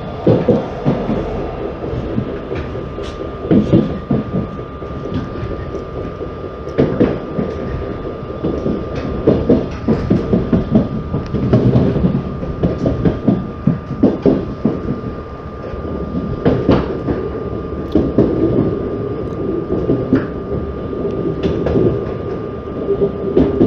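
RER commuter train running on the rails, heard from inside the carriage: a continuous rumble broken by repeated clacks of the wheels over rail joints, with a steady high whine underneath.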